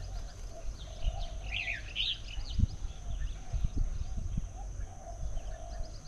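Small birds chirping, with a short burst of calls about one and a half to two seconds in, over scattered low knocks as mynas peck at fruit in clay dishes.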